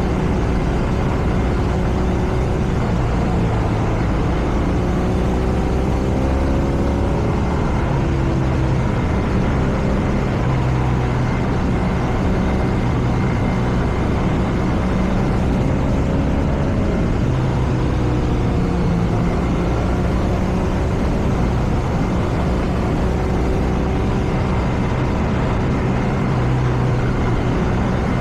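BMW R nineT's air/oil-cooled boxer twin running under way. Its exhaust note rises and falls a few times with the throttle, over steady wind and road noise.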